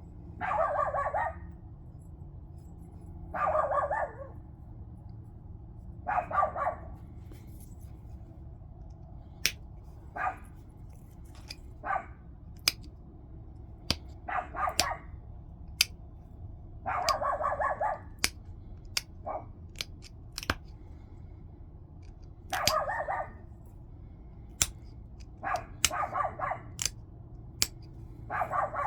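Stone being worked in flintknapping: short scraping strokes of the edge against a coarse abrading stone, each lasting about a second, alternating with sharp clicks as flakes pop off the point.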